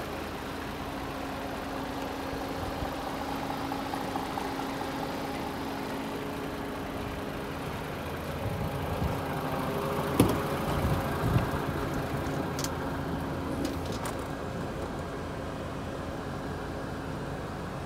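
DAF XF106 tractor unit's PACCAR MX-13 six-cylinder diesel idling steadily, with two sharp knocks about ten seconds in and a few light clicks after.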